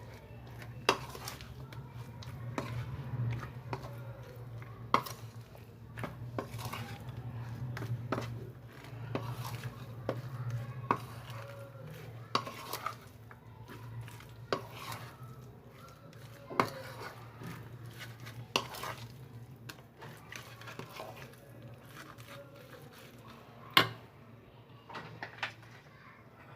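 A spoon stirring and mixing marinated chicken pieces in a bowl, with sharp clinks of the spoon against the bowl every second or two, over a steady low hum.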